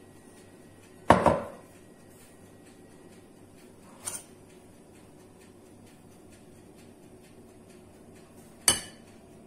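China bowls and a metal spoon clinking against each other three times: a loud clink with a short ring about a second in, a faint one near four seconds, and another loud one near the end.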